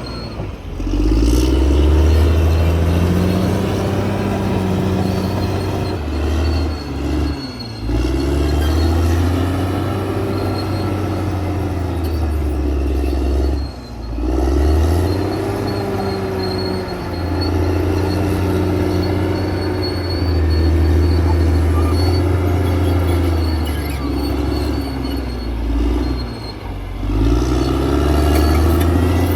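Caterpillar D6R XL crawler bulldozer's diesel engine working under load, its pitch repeatedly dropping and climbing back as the load comes on and eases off. The engine speed dips briefly several times, most clearly about halfway through.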